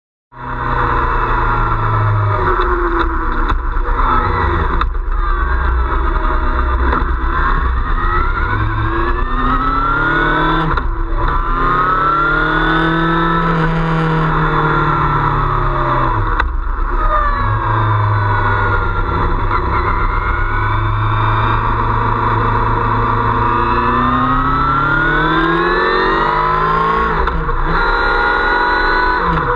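Motorcycle engine running while riding, recorded close to the engine, with wind and road noise. It cuts in abruptly after a moment of silence, and its pitch rises and falls with speed, broken briefly a few times.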